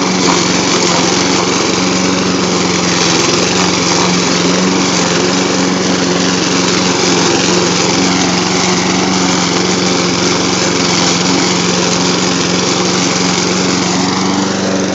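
Troy-Bilt 21-inch walk-behind lawn mower's small engine running steadily at a constant pitch under load, its blade cutting through tall, thick brome grass.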